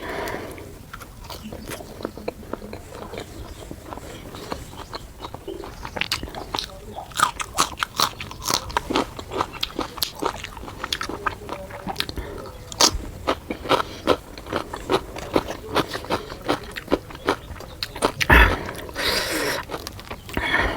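Close-miked eating of puri with chicken curry: chewing and biting with many short wet clicks and smacks of the mouth. There is one louder knock about 18 seconds in, followed by a short noisy rush.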